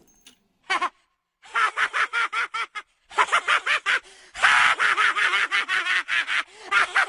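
A person's voice making rapid, high-pitched, breathy gasping bursts, about four or five a second, in several runs with short pauses between them.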